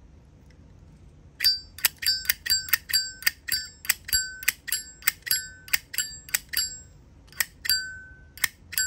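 Zippo lighter's hinged metal lid being flipped open and snapped shut over and over, about three sharp clicks a second, each with a short bright metallic ring. The clicks start about a second and a half in.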